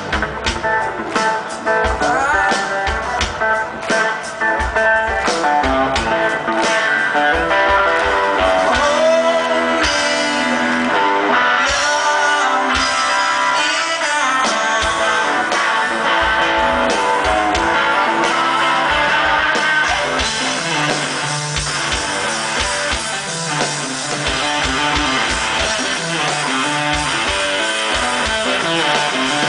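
Live blues-rock band playing loudly, electric guitar to the fore over a steady driving beat.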